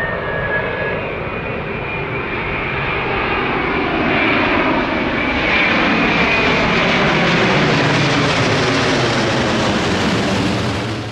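Airliner passing low overhead, its engine noise loud and swelling about four seconds in, then cutting off suddenly near the end.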